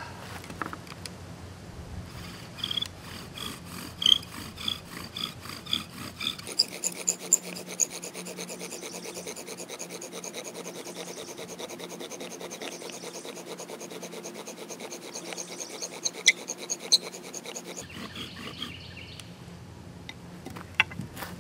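Bow drill making fire: an eastern red cedar spindle, driven by a bow with a deer-hide string, rasps and squeaks as it spins in a cedar hearth board to raise an ember. A few spaced strokes come first, then a fast, steady back-and-forth run for about ten seconds that slows and stops near the end.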